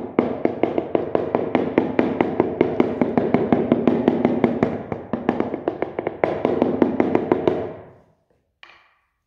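Rubber mallet tapping a large ceramic floor tile in quick, even blows, about four a second, bedding the tile into its adhesive. The tapping stops about eight seconds in.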